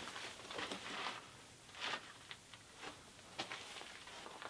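Faint, irregular scuffs and rustles of a person moving on foot: shoes scraping on grit and a jacket and backpack brushing as he squeezes through a mine gate.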